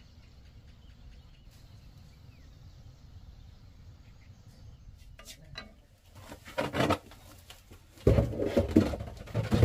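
Dry rice grains in a metal wok stirred with long wooden chopsticks, a scraping, rustling sound. It starts about six seconds in and is loudest near the end, after several seconds of faint low background noise.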